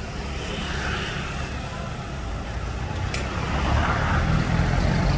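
Hot oil sizzling and bubbling in a wok as a mound of shredded rice-grain batter deep-fries in a wire strainer. Under it runs a low rumble of passing road traffic, which grows louder about three and a half seconds in.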